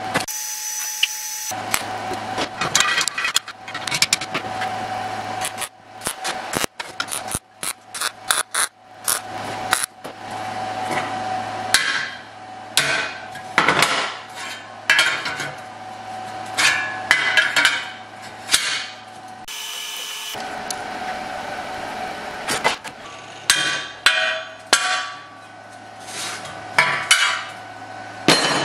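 Hammer blows and taps on steel tubing and sheet as rocket-stove parts are fitted together, many separate knocks with short noisy bursts between, over a steady low shop hum.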